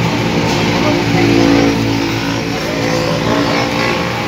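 A motor vehicle engine running, a steady noise whose hum swells and grows louder about a second in, then eases off.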